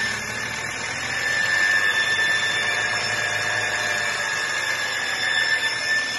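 BMW N53 straight-six engine running with a steady high-pitched whistle over its noise. The whistle is the symptom of a torn crankcase ventilation membrane in the valve cover drawing in false air.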